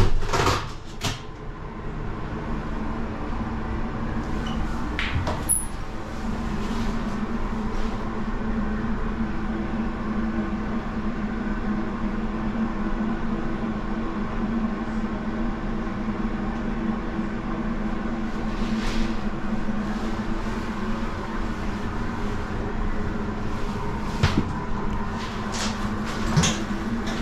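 Steady low hum with a faint tone inside an enclosed Ferris wheel gondola as it rides up from the boarding platform. A loud clunk right at the start and a couple of short knocks near the end.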